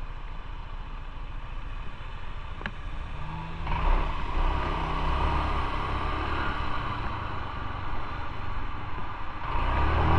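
Motorcycle engine running while riding, with wind noise over the microphone; it grows louder about a third of the way in and again near the end.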